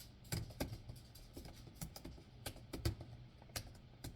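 Typing on a computer keyboard: scattered, irregular keystroke clicks.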